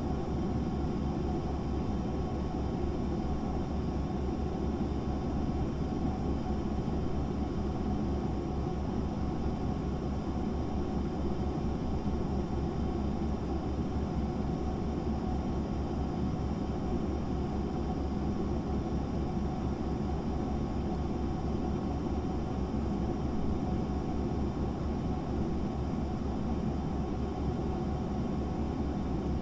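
Steady whirring hum of a fan heater running, with a low, fast-pulsing drone underneath and faint steady tones.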